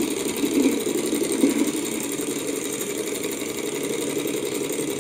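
Small dual-piston Stirling engine with a propeller running steadily at speed, making a fast, even mechanical chatter.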